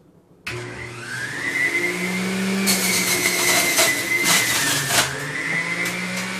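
Electric juicer switched on about half a second in, its motor whining up to speed, then grinding and crunching as celery is pushed down the feed chute. The motor pitch sags briefly under the load around five seconds in and recovers.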